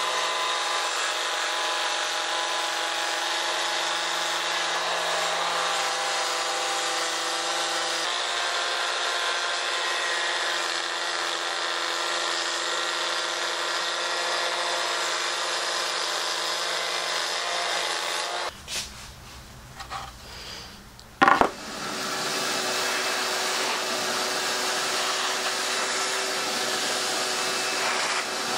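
Porter-Cable compact router running steadily as it routes a groove in MDF. It stops about eighteen seconds in, a sharp knock follows, and then a shop vacuum starts and runs steadily, sucking up the sawdust.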